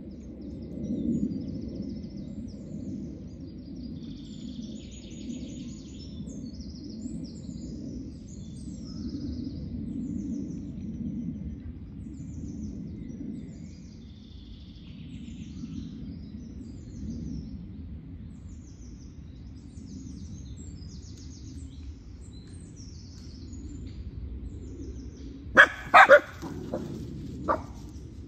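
Woodland songbirds sing over a steady low rumble. Near the end a dog barks sharply four times, three in quick succession and one a moment later.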